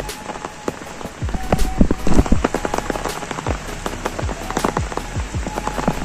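Rain falling, with many large drops striking close by in quick, irregular taps, thickest about two seconds in.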